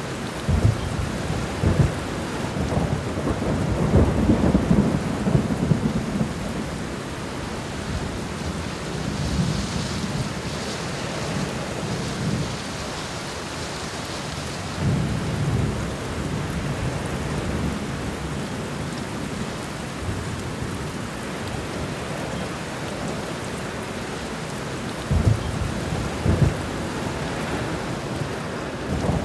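Steady rain with rolling thunder. A long rumble builds over the first few seconds, another swells about fifteen seconds in, and a sharper pair of rumbles comes near the end. The rain's hiss grows brighter for a few seconds in the middle.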